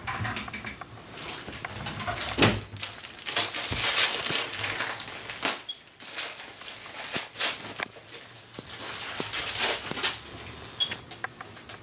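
Gloved hands and gauze rustling and crinkling as an abscess on a dog's face is squeezed, in irregular bursts with a few sharp clicks.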